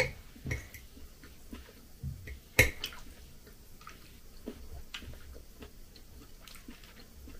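Eating sounds: quiet chewing with scattered clicks of a fork against a glass plate, the sharpest about two and a half seconds in.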